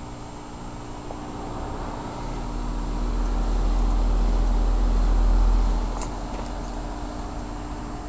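Bryant Legacy Line heat pump outdoor unit running in a defrost cycle: a steady hum, with a deep rumble that builds over a few seconds and then eases off. The unit runs on timed defrost rather than demand defrost.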